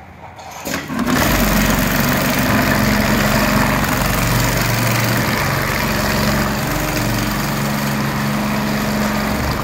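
Programmable automatic pattern sewing machine (HighTex FIBC911-400H) running at high speed, rapidly stitching a webbing lifting loop onto big-bag fabric, with a motor hum that shifts pitch in steps. It starts about a second in and stops near the end.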